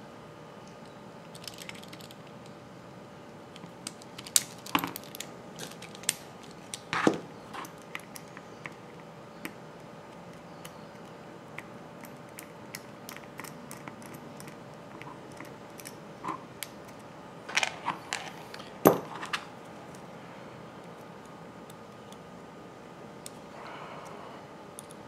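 Small metal clicks and taps as a hex key works the head screws of a model four-stroke glow engine and the metal parts are handled. They come scattered, with two busier clusters, one about a quarter of the way in and one about three quarters through.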